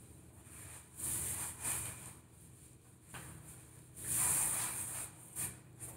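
Hand-held whiteboard duster being rubbed across a whiteboard, wiping off writing in swishing strokes, with two main passes about a second in and about four seconds in, then a few short wipes.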